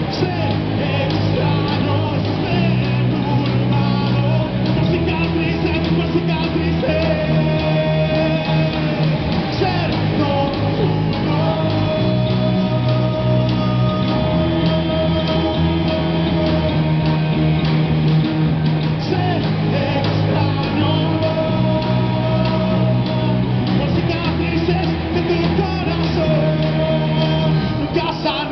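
A rock band playing live: electric guitars over bass guitar and a drum kit, in a continuous passage with long held guitar notes and a bass line that moves every couple of seconds.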